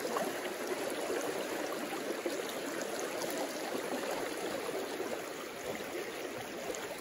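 Shallow river riffle running fast over rocks: a steady rush of moving water.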